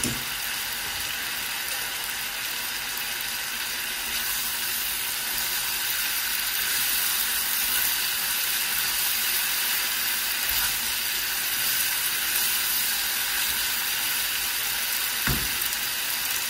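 Diced chicken breast, onion and red and green peppers sizzling in a nonstick frying pan as they are sautéed and stirred with a spatula: a steady frying hiss, a little louder after about four seconds, with a single knock near the end.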